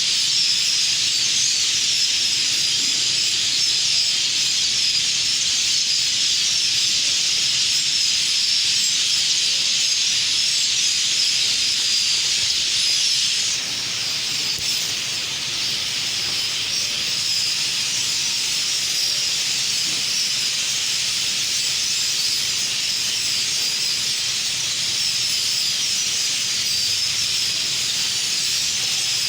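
A huge flock of birds calling all at once, their calls merging into a continuous high-pitched, hiss-like wall of chatter that eases off slightly about halfway through.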